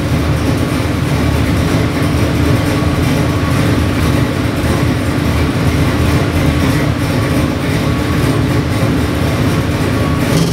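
427 cubic-inch small-block Chevy stroker V8 idling on an engine dyno at about 700 rpm, with a steady but choppy, uneven idle from its performance camshaft.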